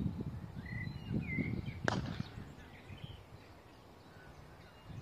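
A single sharp crack about two seconds in, a cricket bat striking the ball, over wind buffeting the microphone and scattered bird chirps.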